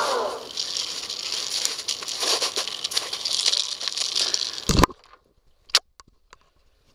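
Crunching, crackling footsteps in snow with clothing rustle coming closer, then a sharp loud knock about five seconds in as the camera is grabbed, followed by a few faint handling clicks.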